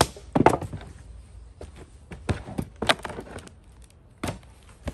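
Irregular knocks, clunks and rustles of handling: a hand working at the camera, then footsteps and a chainsaw, its engine off, being picked up and carried. The loudest knocks come about half a second in.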